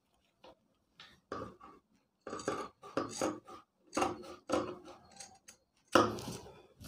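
Large tailoring shears cutting through two layers of coat fabric: a run of short snips as the blades close, the loudest about six seconds in.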